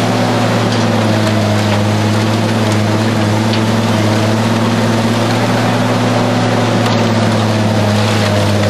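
Hammel 750D diesel shredder running steadily under load with a deep, even engine drone, its shafts grinding and crunching through a car body in the hopper.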